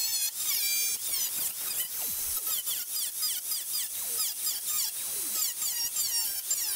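A cutoff wheel cutting into the steel front fender of a Nissan 240SX. It makes a high whine that drops in pitch over and over, about three times a second, as the disc bites into the sheet metal.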